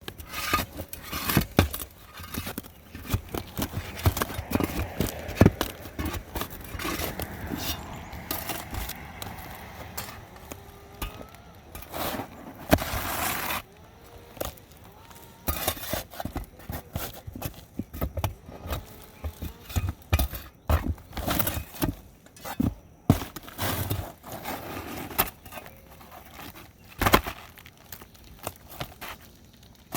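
Irregular knocks, clicks and crackles, with a louder scraping rush lasting about a second and a half some twelve seconds in.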